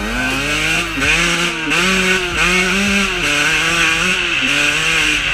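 Two-stroke dirt bike engine being ridden, revving up and dropping back in pitch several times as the throttle is worked.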